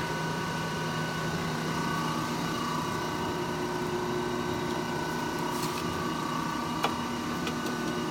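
Large 1958 Monarch engine lathe running under power with its carriage feed drive engaged: a steady machine hum with gear whine, and a single sharp click about seven seconds in.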